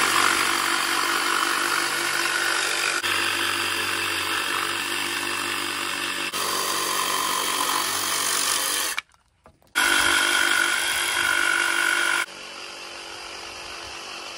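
Cordless DeWalt 20V jigsaw cutting pine tongue-and-groove boards, the blade running steadily through the wood in several spliced stretches. The sound breaks off for a moment about nine seconds in, and is quieter over the last couple of seconds.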